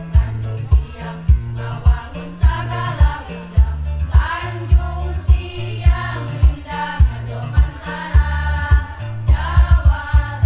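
Women's choir singing together over an accompaniment with a steady kick-drum beat, about two beats a second, and a bass line.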